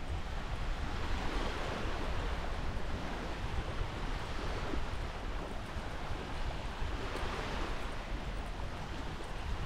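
Waves washing onto the beach, swelling and fading every few seconds, with wind rumbling on the microphone.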